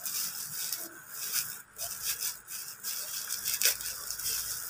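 White plastic packaging crinkling and rustling in the hands as it is peeled open, with uneven crackles. The sharpest crackle comes about three-quarters of the way in.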